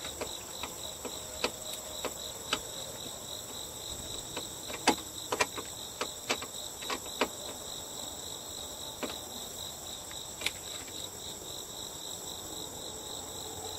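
Steady high-pitched chorus of insects, with scattered sharp clicks and taps of a hand tool working on the metal door handle bracket of a car door.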